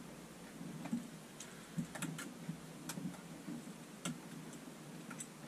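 Light, irregular clicking of a metal shower hose and its threaded coupling nut as it is screwed onto the fitting by hand, with several separate clicks spread over a few seconds.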